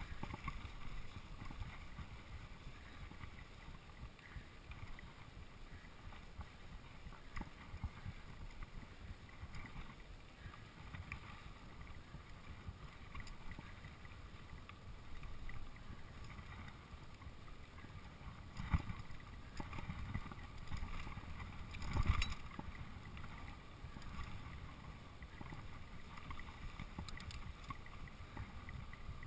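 Mountain bike rolling down a dirt singletrack: a steady low rumble of tyres on dirt and wind on the camera's microphone, with two sharper knocks from bumps about two-thirds of the way through.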